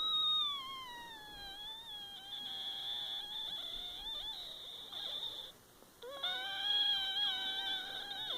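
A person making a long, high-pitched squealing noise with the voice. The pitch slides down and wavers, and it breaks off briefly about five and a half seconds in before starting again.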